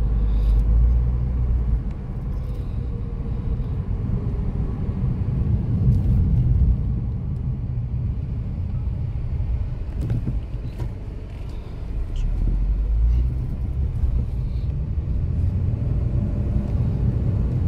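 A car driving along a road, heard from inside the cabin: a steady low rumble of engine and road noise that swells and eases slightly.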